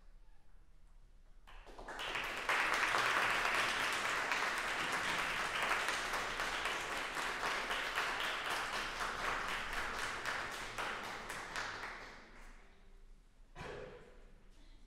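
Audience applauding, rising about two seconds in, holding steady, then dying away a little before the end.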